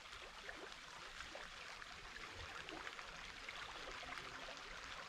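Light rain falling steadily, a soft even hiss flecked with many small drop ticks.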